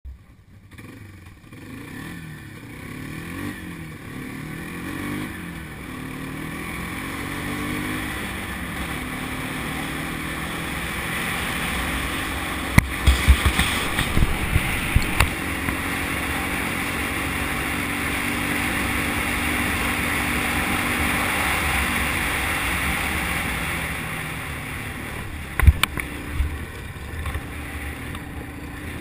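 ATV engine running under way, its pitch rising and falling several times in the first few seconds and then holding steady, with a rushing noise over it. Loud knocks come in a cluster about halfway through and again near the end.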